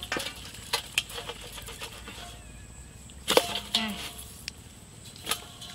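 Scattered wet clicks, knocks and small splashes from a live catfish being handled in a steel bowl of water, the loudest a little past halfway.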